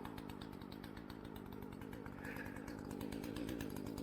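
Two-stroke chainsaw idling steadily with a fast, even firing pulse, warming up after its first start in at least a year.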